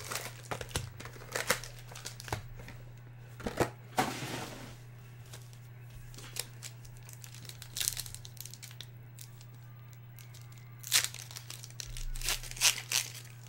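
Foil wrappers of Panini Prizm baseball card packs crinkling as they are handled, with scattered crackles. Near the end a pack is torn open. A steady low hum runs underneath.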